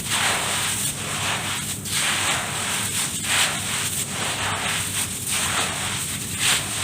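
Dirt crumbled and mixed by hand, an irregular run of gritty crunching and rustling strokes.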